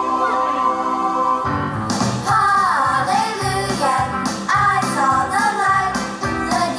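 Prerecorded upbeat gospel song with no lyrics sung here: a held chord, then about a second and a half in the full band comes in with a steady drum beat under a moving lead melody.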